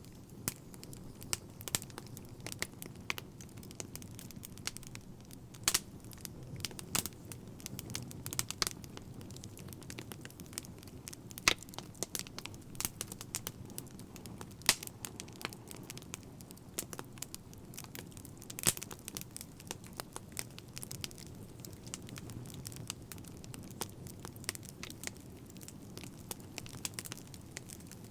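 Crackling fire: irregular sharp pops and snaps, a few louder ones, over a steady low rumble of burning.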